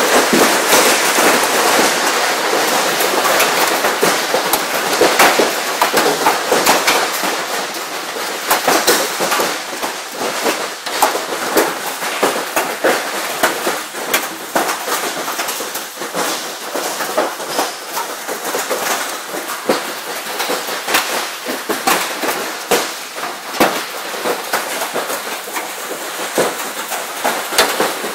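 Hailstorm: hailstones pelting down in a dense, irregular stream of sharp clicks and knocks over a steady hiss of rain, thinning a little after about eight seconds.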